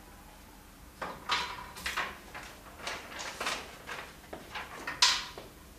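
A string of short scratchy rustling and scraping strokes over about four seconds, with the sharpest and loudest one near the end: handling sounds at a whiteboard lecture, such as paper notes or a marker being handled.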